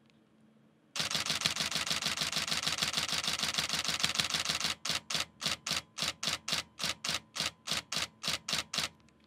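Nikon D750 DSLR firing a continuous high-speed burst, its mirror and shutter clacking rapidly for about four seconds. It then slows to separate shots at about four a second, the sign of a full buffer with the camera writing to its SD card.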